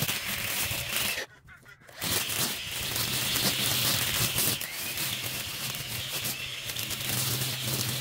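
String trimmer running and cutting long grass, a steady whine with rapid ticking as the line strikes the stems. The sound drops out for under a second about a second in, then the trimmer carries on.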